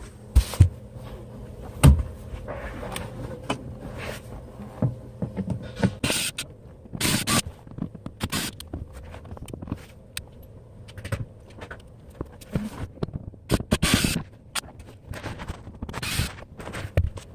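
Hands and tools working on the trim under a car's steering column: irregular clicks and knocks, with two sharp knocks in the first two seconds, and short scraping rubs scattered through.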